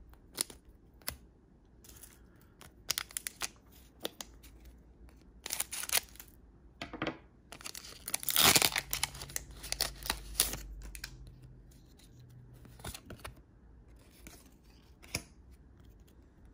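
Foil Pokémon booster pack wrapper crinkling in the hands and being opened, with scattered crackles and clicks; the loudest part is a rasping rip lasting a few seconds, about eight seconds in.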